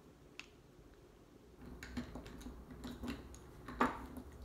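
Small wax taper candles clicking and rustling together as a bundle of them is handled, a run of light clicks with one sharper knock near the end.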